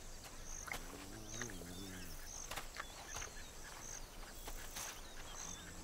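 Quiet savanna ambience: an insect chirps high and steadily, about every two-thirds of a second, with faint bird calls. About a second in, a spotted hyena gives a short, low, wavering call.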